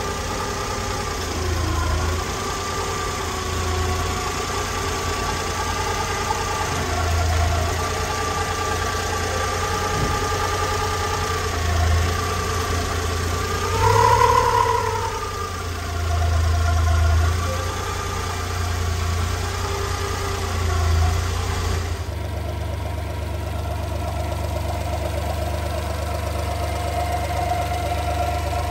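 1988 Honda Acty 4WD kei truck's engine idling steadily, with a brief rise in engine speed about halfway through. A little past two-thirds of the way the sound changes abruptly to an even, steadier idle.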